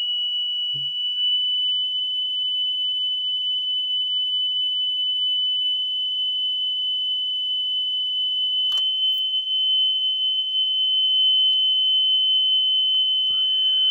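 A 3000 Hz speed-calibration tone played back from a test cassette on an Aiwa AD-F500 cassette deck, loud and steady, its pitch creeping up over the first couple of seconds as the tape motor's speed trim is turned, then holding close to 3 kHz. The rising pitch shows the deck being brought up from running slow to correct tape speed.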